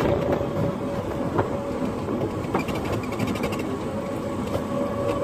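Electric tricycle in motion, heard from inside its passenger cab: a steady motor whine over road rumble, with the cab body rattling and a few sharp knocks from bumps.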